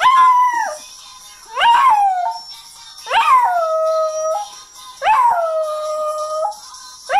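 Small dog howling along to music: four drawn-out howls in a row, each rising quickly and then held on one steady note, each one longer than the last, with a fifth starting at the very end. Music plays faintly underneath.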